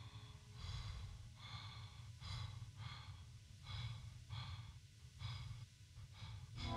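A person breathing hard and fast, a rapid run of audible breaths about one and a half per second. A loud, held brass-like chord swells in at the very end.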